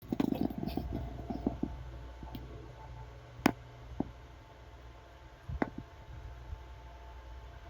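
Scattered light clicks and taps over a low steady hum. There is a quick cluster of them at the start, then a sharper single click about three and a half seconds in and another a couple of seconds later.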